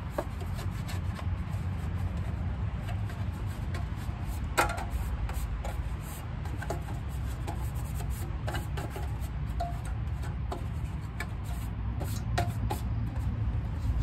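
Hands rubbing and scraping at an exterior dryer vent hood while cleaning it, with scattered light clicks and one sharper click about four and a half seconds in, over a steady low rumble.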